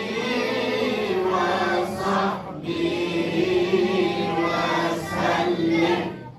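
A congregation's voices chanting together in unison, a devotional chant. There is a short break about two and a half seconds in, and the chant drops away at the very end.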